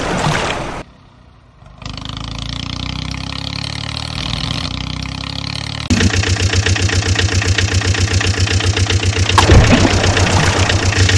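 Engine sound effect dubbed over toy vehicles: a diesel engine running, which briefly drops out about a second in and comes back, then from about six seconds in turns louder with a fast, even knocking beat. Water splashes near the start and again about nine seconds in.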